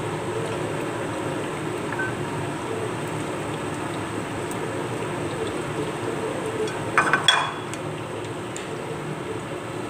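Sweet potato pieces frying in oil in a pan: a steady sizzle over a low, even hum. About seven seconds in, a short clatter of the spatula against the pan.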